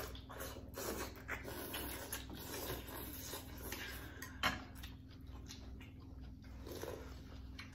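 Several people slurping bún bò Huế rice noodles and broth from bowls and chewing, with irregular wet mouth noises and small clicks. One sharp click stands out about four and a half seconds in.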